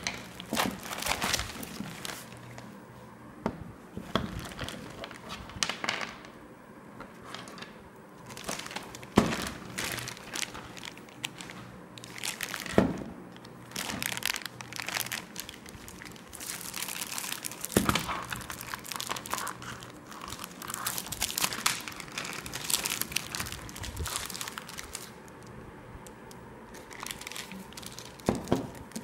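Packing material crinkling and tearing as it is pulled off and handled, with a few sharper knocks along the way.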